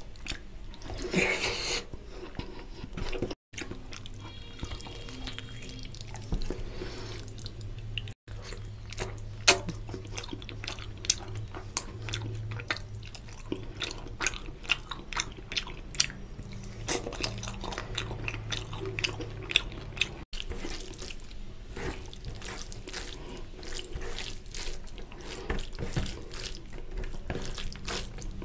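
Close, wet squelching and clicking of fingers mixing rice with curry gravy on a steel plate, and of chewing and lip smacks, many small clicks at an irregular pace. A low steady hum runs underneath, and the sound cuts out briefly three times.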